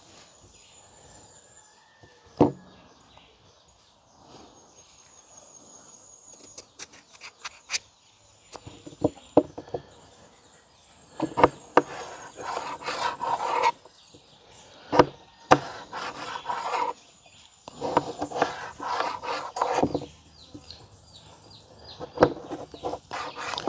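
Kitchen knife cutting raw breadfruit into chips on a tabletop: scattered sharp knocks of the blade against the table and rasping cutting strokes that come in clusters, mostly in the middle and later part. Faint high trilling runs in the background.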